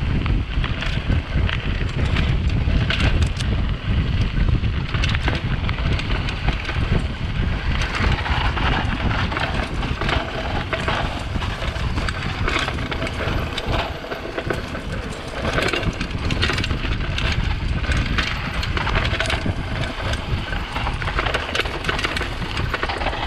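Wind buffeting the microphone of a GoPro on a moving mountain bike, with tyre noise and irregular rattling knocks from the bike over rough ground.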